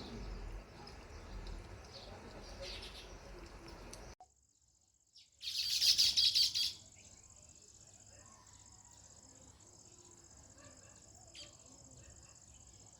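House sparrows chirping over background noise; about four seconds in the sound cuts out abruptly for about a second. Then comes a loud burst of dense chirping lasting about a second and a half, followed by quieter ambience with a steady high-pitched tone and a few scattered chirps.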